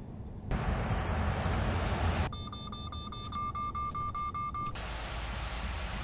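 Mercedes Actros truck cab's forward-collision warning beeping rapidly for about two and a half seconds, a high pulsing tone, over steady road and engine rumble that grows louder about half a second in.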